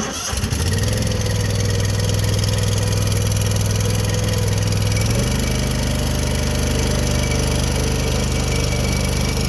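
Struck Magnatrac Hydro 5000 mini bulldozer's engine coming in suddenly and running steadily. Its note changes about five seconds in.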